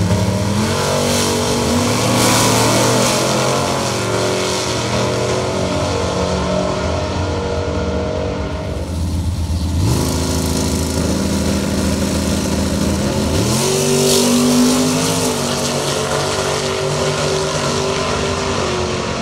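Drag-racing cars' engines running hard at the start line and launching, pitch sweeping up as they accelerate, twice: once near the start and again in the second half after a brief drop about halfway through.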